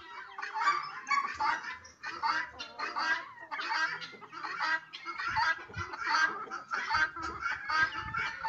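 A flock of chickens clucking and squawking, many short calls overlapping without pause. A few low thumps come in the second half.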